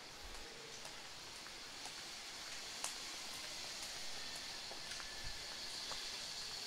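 City street background noise: a steady hiss that grows a little louder, with faint footsteps on pavement about twice a second.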